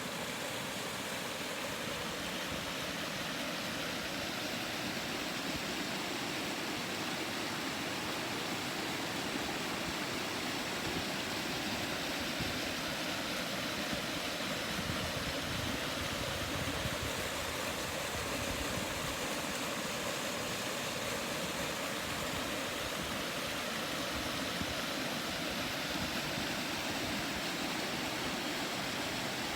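A shallow river's water murmuring and rushing over stones, a steady even hiss with no breaks.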